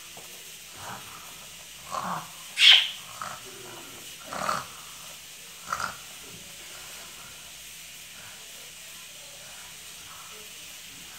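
A girl's short wordless vocal sounds, four brief ones between about two and six seconds in, the second the loudest, over a low, steady room noise.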